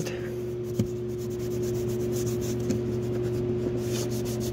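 A small adhesion-promoter pad rubbed back and forth over a textured plastic car door panel, making repeated quick scratchy strokes over a steady low hum, with a single light click about a second in.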